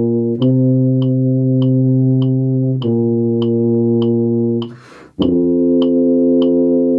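Tuba playing long sustained notes, changing pitch about every two and a half seconds, over a steady metronome click. A quick breath is taken about five seconds in before the next note.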